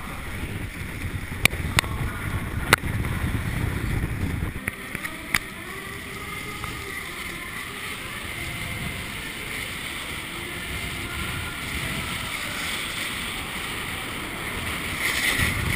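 Skis hissing and scraping over snow on a downhill run, with wind rushing over the microphone. Four sharp clicks come between about one and a half and five and a half seconds in, and the rush grows louder near the end.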